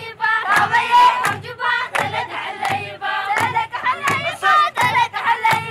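A group of girls and women singing together in loud, warbling unison, with a drum beaten on a steady pulse of about one stroke every 0.7 seconds.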